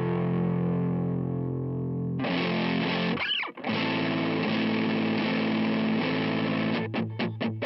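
Electric guitar, a Fender Stratocaster, played through a DOD Overdrive Preamp 250 overdrive pedal. A distorted chord rings and fades, a new chord is struck about two seconds in, and after a brief break another chord is held. Near the end come a few quick, short chopped chords.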